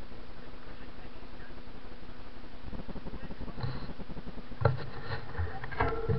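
Steady low rumble of wind buffeting the camera's microphone, with a few knocks and handling noise from a hand on the handlebars about four to six seconds in.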